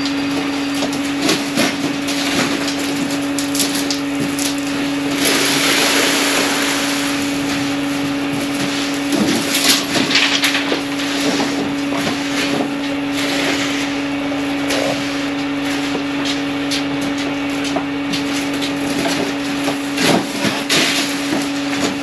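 Concrete being spread and levelled by hand: scraping of a rake and tamp through wet concrete, with knocks from wheelbarrows on boards, over a steady mechanical hum. Two longer, louder scraping spells come about five and nine seconds in.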